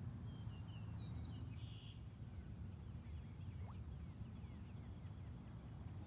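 Faint outdoor ambience: a low steady rumble with a few distant bird chirps and short whistles, most of them in the first couple of seconds.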